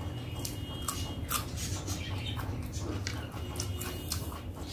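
Close-miked eating sounds: chewing with many short, sharp wet clicks and smacks. Twice a faint, short, high squeak sounds, near the start and again near the end.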